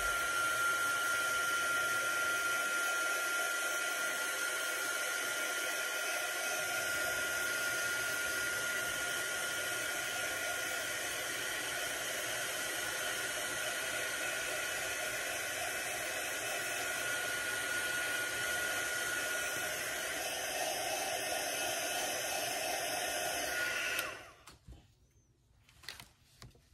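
Embossing heat gun blowing steadily with a fan whine, melting embossing powder. It switches off abruptly about 24 seconds in, followed by a few light clicks.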